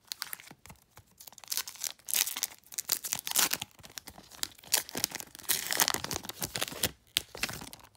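Wrapper of a 2012 Topps Prime football card pack being torn open and crinkled by hand, in irregular crackling bursts.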